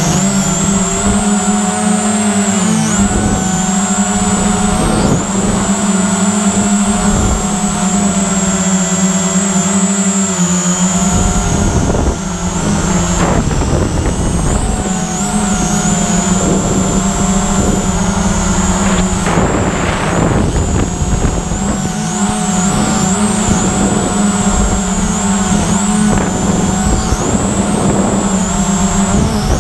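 VISUO XS809HW quadcopter's motors and propellers whining steadily in flight, heard from a GoPro riding on the drone, the pitch wavering and dipping as the throttle changes. The drone is carrying a GoPro 4 that is too heavy for it. An uneven low rumble of moving air on the microphone runs underneath.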